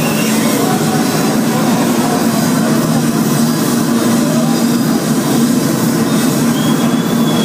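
Loud, steady rumbling din in a concert hall with a low droning hum underneath, a dense wash with no clear tune or voices standing out.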